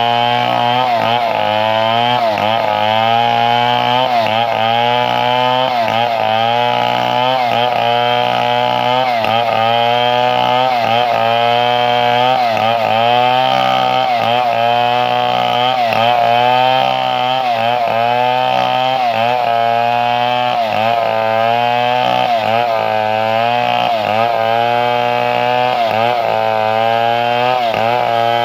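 Two-stroke chainsaw running at high throttle without a break, its engine note wavering about once a second.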